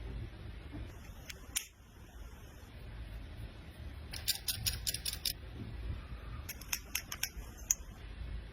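Sharp, light clicks and taps of makeup products and tools being handled: a couple about a second and a half in, a quick cluster around the middle and another near the end, over a steady low hum.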